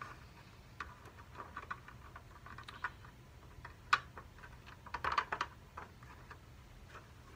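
Light, irregular clicks and taps of small thumb screws and fingertips against hard ABS plastic dome and skirt parts as the screws are threaded in by hand, with a sharper click about four seconds in and a small cluster of taps about a second later.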